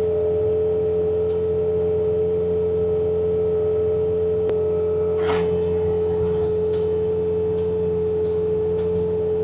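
Bobcat T66 compact track loader running with its hydraulic snowblower attachment engaged: a steady high-pitched whine over the low drone of the diesel engine, with a few faint clicks in the second half.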